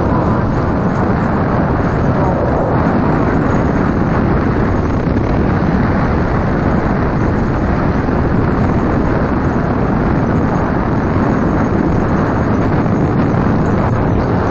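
Steady loud rumble of wheels rolling fast over a gravel trail, mixed with wind buffeting the microphone.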